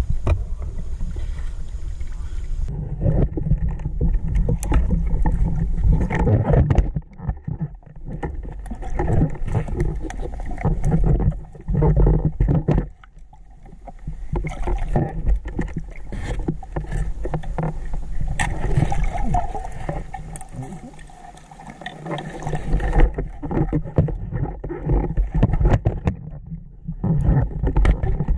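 Muffled rushing and sloshing of water close to the microphone, full of small knocks, falling quieter several times and then rising again.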